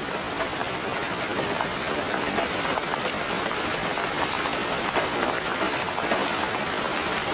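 Steady rain falling: a constant dense patter with many individual drops ticking through it.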